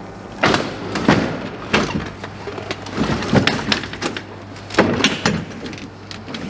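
Aluminium mortuary transfer stretcher being pushed into the back of a van: a run of metal clanks and rattles, about seven, as its released legs fold and it rolls onto the load floor.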